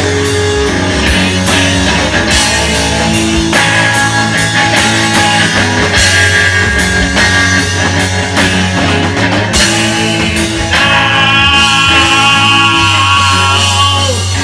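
Live rock band playing an instrumental break between sung lines, with repeated cymbal crashes over a steady bass. About eleven seconds in, a new held, high melodic line comes in over the band.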